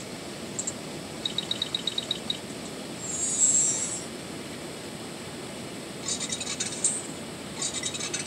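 Short, rapid chirping trills of about eight clicks each, from a small animal calling outdoors. A brief high hiss comes about three seconds in, and raspier bursts of chirping follow near the end.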